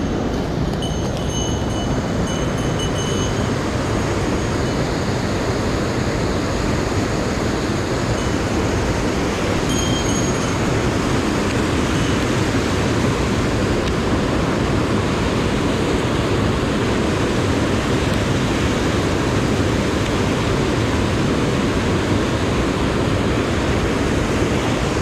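Mountain stream rushing steadily down a steep rocky cascade, a constant loud wash of whitewater.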